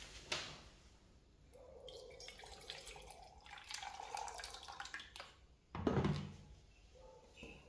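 Water pouring from an electric kettle into a stainless steel mug, the filling sound climbing in pitch for a few seconds. About six seconds in, a heavier thump as the kettle is set down on the glass tabletop, the loudest sound here.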